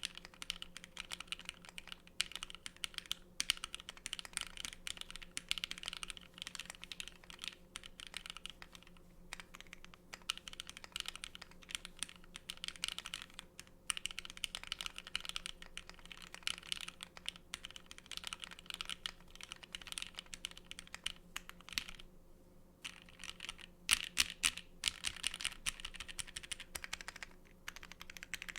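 Typing on an Ai03 x ION Equinox 40% mechanical keyboard, plateless gasket-mounted, with lubed and filmed Alpaca linear switches and DSA keycaps. It is a fast, continuous stream of keystrokes with a few short pauses, the longest about 22 seconds in, over a faint steady hum.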